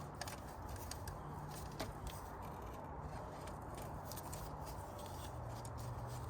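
A few faint light clicks of a mountain bike chain and rear derailleur being worked by hand onto the rear cog, over a steady low background hum.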